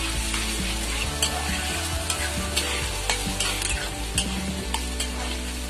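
Chopped onion and garlic sizzling in oil in a steel kadhai as a spatula stirs them, scraping and clicking against the pan a few times a second over a steady hiss.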